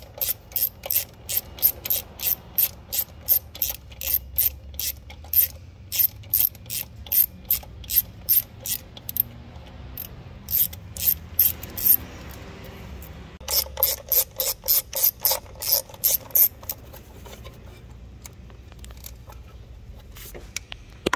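Hand ratchet clicking in quick back-and-forth strokes, about two to three clicks a second, as it undoes bolts on an engine. The clicking stops briefly about twelve seconds in, starts again, then turns fainter and sparser near the end.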